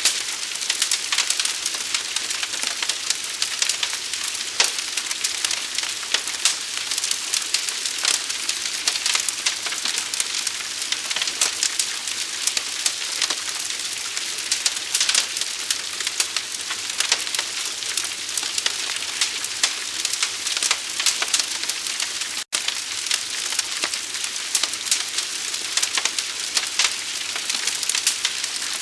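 A burning fire crackling and popping: a dense, steady hiss thick with sharp snaps. The sound cuts out for an instant about three-quarters of the way through.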